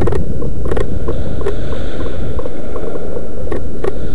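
Loud, steady rumbling noise on a gun-mounted camera's microphone as the player moves, with several sharp clicks scattered through it.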